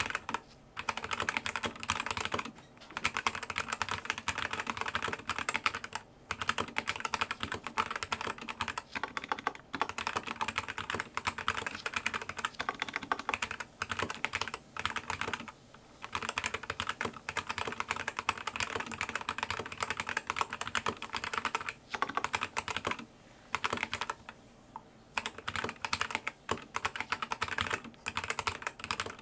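Fast typing on a Zi You Lang K68 mechanical keyboard with linear red switches: a dense clatter of keystrokes broken by several short pauses.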